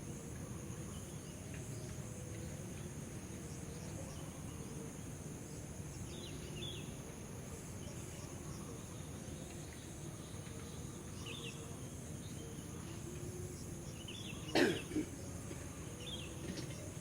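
Quiet outdoor background with a steady high-pitched insect drone and a few faint, short chirps. Near the end comes one short, loud, harsh sound, then a smaller one.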